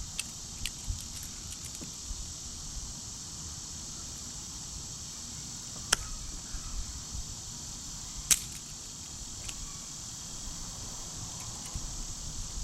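Insects chirring in a steady high hiss, with a handful of sharp clicks and taps from hand tools working a cable terminal. The loudest two clicks come about six and eight seconds in.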